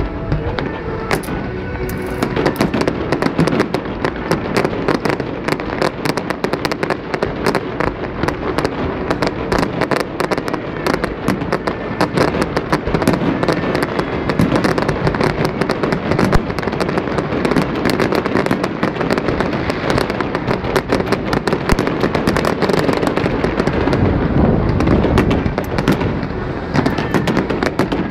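Fireworks display: aerial shells bursting in rapid succession, a near-continuous barrage of bangs and crackles.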